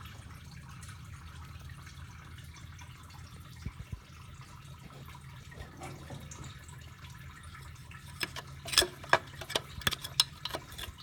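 A steady low hum, with two light clicks about four seconds in, then a quick run of small sharp clicks and taps over the last three seconds.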